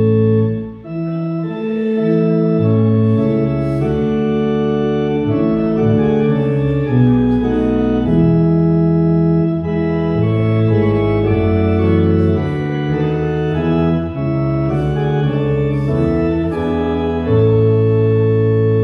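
Organ playing a hymn tune in full chords. It opens on a long held chord, breaks briefly about a second in, moves through a line of chords, and settles on another long held chord near the end.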